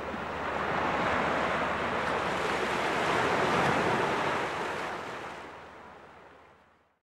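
Small waves breaking and washing up on a sandy shore. The surf swells louder around the middle, then fades out to silence near the end.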